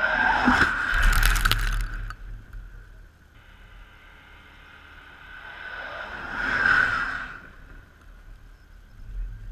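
A Mercedes-Benz van passes close by at speed, its tyre and engine noise swelling and then fading within the first two seconds, with a low rumble underneath. A second, smoother swell of vehicle noise rises and falls about six to seven seconds in.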